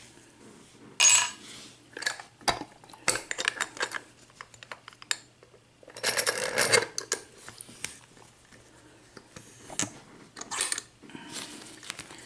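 Scattered metallic clicks and clinks as a half euro cylinder lock and its key are handled, with a louder clatter about a second in and another longer one about six seconds in.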